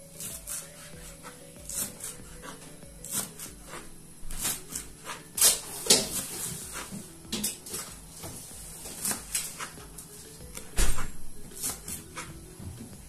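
Kitchen knife chopping fresh coriander on a cutting board: irregular sharp knocks, two or three a second, with a few much louder strokes.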